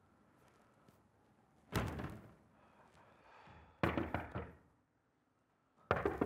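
Three dull knocks or bangs, about two seconds apart, each fading quickly.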